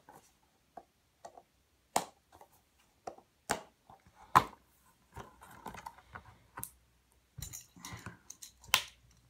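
Fingernails picking and scratching at the security label sticker on a plastic DVD case, with sharp clicks and taps as the case is handled; the loudest click comes a little past four seconds in.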